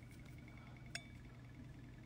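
Quiet room tone with a steady low hum and one sharp, short click about a second in.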